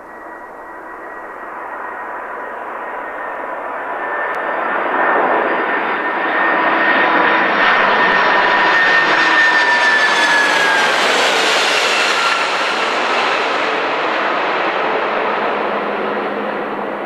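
McDonnell Douglas MD-11F freighter's three jet engines on landing approach, swelling to a loud rush as the plane flies low overhead. Its engine whine drops in pitch as it passes, and the sound eases slightly as it moves away.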